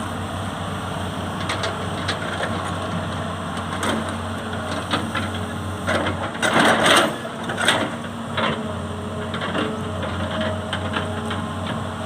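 A heavy machine's diesel engine runs steadily while long rubberwood logs are handled, knocking against each other, with a loud burst of cracking and clattering wood about six to seven and a half seconds in.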